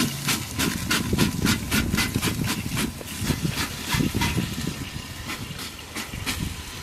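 Toy microwave overheating inside a microwave oven, crackling and sizzling with rapid sharp pops, several a second, over a low rumble. The pops thin out near the end.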